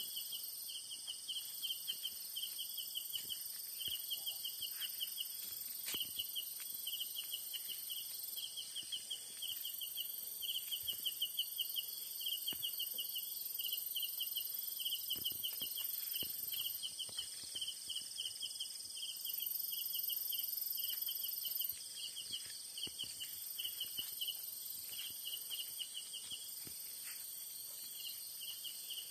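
Night insects calling: a fast chirping trill in repeated bursts about a second or two long, over a steady high-pitched insect drone.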